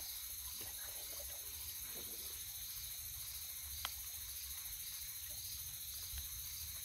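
Night insect chorus: a steady high-pitched trill pulsing about twice a second, with one sharp click about four seconds in.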